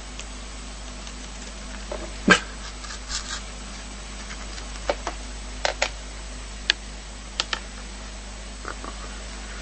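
A goat making a series of short, sharp sounds, about ten in all, often in quick pairs, the loudest about two seconds in.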